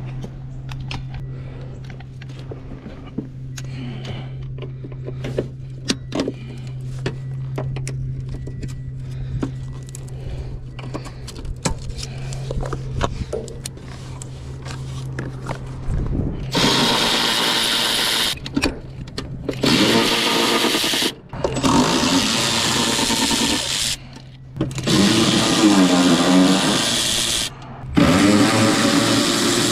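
A steady low hum with scattered small clicks and clinks. About halfway in, a cordless power tool starts running in several bursts of a few seconds each, its motor speed rising and falling, as fasteners are run out to get at the ABS module.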